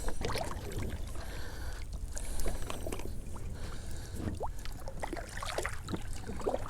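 A kayak being paddled on calm water: the paddle dips and water splashes and drips, with scattered light clicks and knocks.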